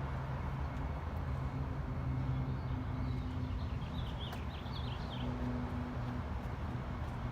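A steady low mechanical hum, with a bird chirping a quick series of notes about halfway through.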